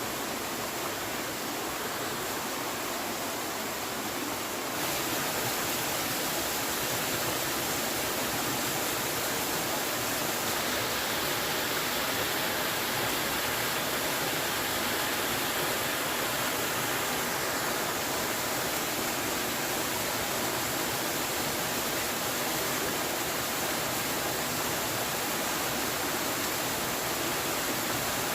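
Steady rush of water, an even hiss with no distinct events, getting a little louder about five seconds in.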